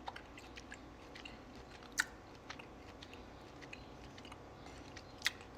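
A person chewing a chewy sour gummy candy bite, Sour Punch Mini Bites, faint wet mouth clicks scattered through, with two sharper clicks about two seconds in and near the end.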